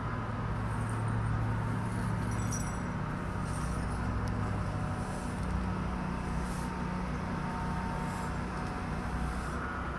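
Steady low hum of a running engine over a faint outdoor hiss.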